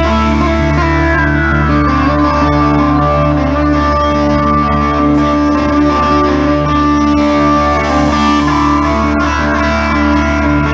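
Live blues-rock played loud through a PA: electric guitar holding sustained, droning notes, with a high tone sliding down in the first couple of seconds.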